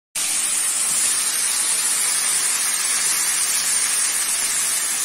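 Raw chicken pieces sizzling loudly in hot oil in a steel wok: a steady, even hiss that starts suddenly right at the beginning.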